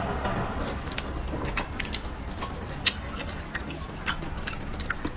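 Close-up chewing of a soft, sticky piece of braised meat, with irregular wet mouth clicks and lip smacks, one louder smack about three seconds in.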